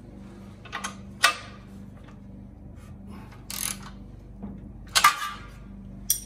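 Hand tools on a motorcycle exhaust heat-shield bolt: a few sharp metal clicks and knocks and a short rasp as a wrench and ratchet are worked on the bolt, over a faint steady hum.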